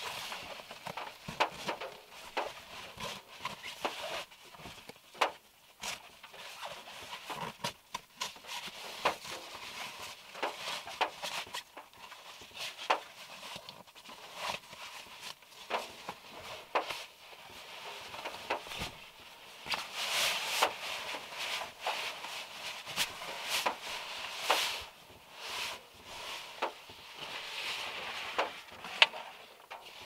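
Irregular drops of rain tapping on a Volkswagen Beetle's roof and body, heard from inside the car, with the rustle of a nylon sleeping bag and puffy jacket being handled, loudest in the second half.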